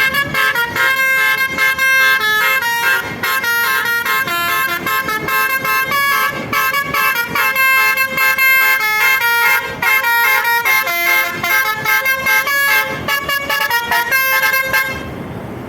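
Basuri telolet musical air horn on a tour bus, its multiple trumpets playing a fast melody of short, loud, pitched toots. The horn stops about a second before the end.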